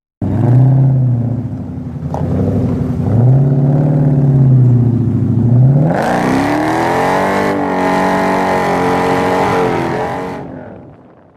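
Car engine revving: its pitch swells and drops back twice, then climbs steadily as the car accelerates hard from about six seconds in, holding high before fading out near the end.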